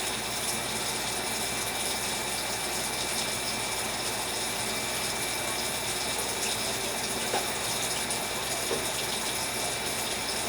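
Steady hiss of food cooking in a pot on the stove, with a few faint clicks.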